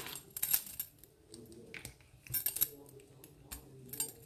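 Scattered metallic clicks and clinks of a picked-open padlock and its key being handled and tried.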